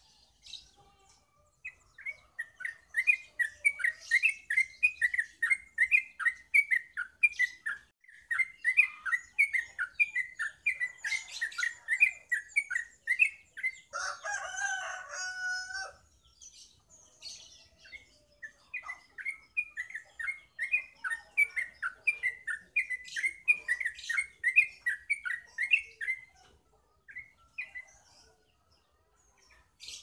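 Caged yellow-vented bulbul (trucukan) singing long runs of fast repeated chirps, about three a second. In the middle the song breaks off while a rooster crows once for about two seconds.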